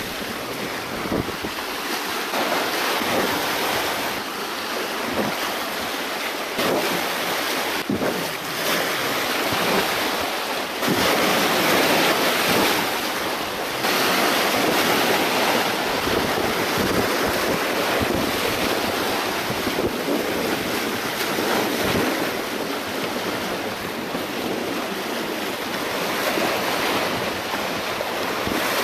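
Small sea waves breaking and washing over jetty rocks, with wind buffeting the microphone. The surf swells louder for a few seconds a little before the middle.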